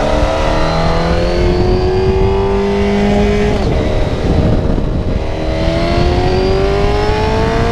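1993 Honda CBR900RR Fireblade's inline-four engine pulling under acceleration, its pitch rising steadily. A little past halfway it eases off briefly, then rises again as the bike accelerates once more.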